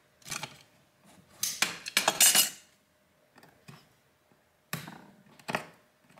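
Small metal hand tools scraping and clicking against a laptop's plastic bottom case as a damaged corner is cut and bent away. A string of irregular scrapes and clicks, the longest and loudest about two seconds in.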